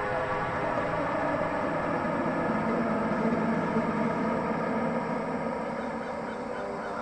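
Car running, heard from inside the car as a steady low rumble that swells for a few seconds in the middle, with steady tones from background music underneath.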